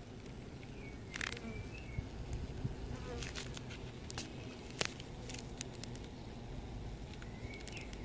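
Honeybees buzzing faintly at the entrance hole of a polystyrene hive, with scattered sharp clicks and crackles, a dozen or so, over the middle of the stretch: the chewing sound of the bees gnawing the polystyrene, which the beekeeper thinks is them making a hole.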